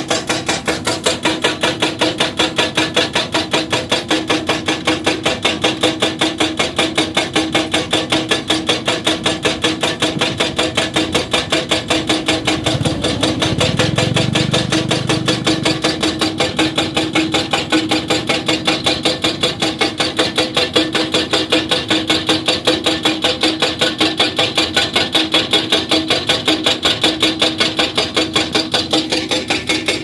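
Hydraulic rock breaker on a Hyundai 220LC excavator hammering rock in a fast, even rhythm of about four blows a second, over the steady hum of the excavator. A low rumble swells briefly about halfway through.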